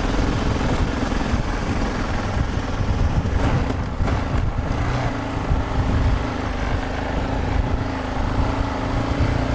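Yamaha XT 660Z Ténéré's single-cylinder engine running steadily while riding, under a steady rush of wind and road noise.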